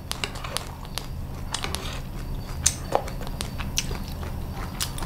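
Mouth sounds of chewing crispy Vietnamese fried rice-flour cake with egg (bột chiên), with sharp crunching clicks scattered throughout.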